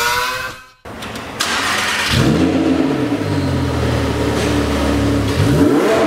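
A short logo sound effect with gliding tones, then the Lamborghini Huracán LP610-4's naturally aspirated V10 running through a Fi Exhaust valvetronic catback with the valves closed. It revs up about two seconds in, holds, then drops and blips again near the end.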